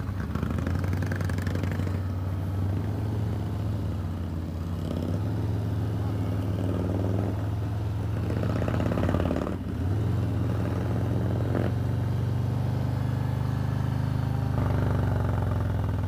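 Harley-Davidson Road Glide's Milwaukee-Eight 107 V-twin with an aftermarket TBR exhaust, running steadily at low speed. The engine note drops briefly about ten seconds in, then picks up again.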